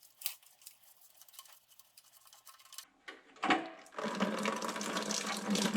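Faint clicks of a drain plug being worked free, then a sudden gush about three and a half seconds in as fluid starts pouring steadily from the IH 1086's engine sump into a pail. The oil comes out gray, a sign of coolant in it on an engine said to be losing coolant.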